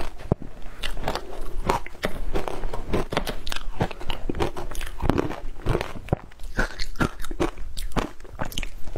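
A spoon digging and scraping through a tub of frozen matcha ice, making a dense, irregular run of crunching clicks.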